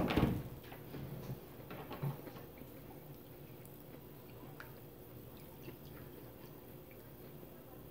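Faint eating sounds: soft chewing and small clicks of food and a spoon handled in a sauce cup. A brief knock comes right at the start.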